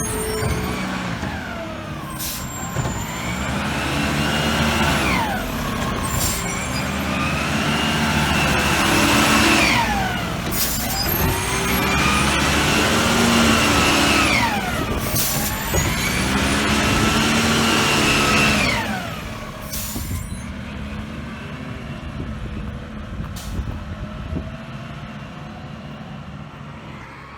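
Garbage truck's squeal, heard four times as a whine that rises in pitch, holds for a couple of seconds and falls away, over the truck's engine, with short sharp bursts between the whines. About twenty seconds in the squealing stops and only a quieter engine rumble is left.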